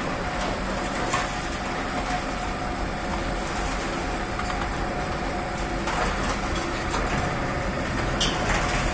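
Sugar cane carrier, a slat-and-chain conveyor, running empty on trial, its chains and steel slats making a steady clattering rumble with a few sharper knocks.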